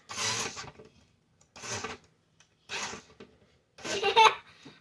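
A child giggling in four short breathy bursts about a second apart, the last one voiced with a rising pitch.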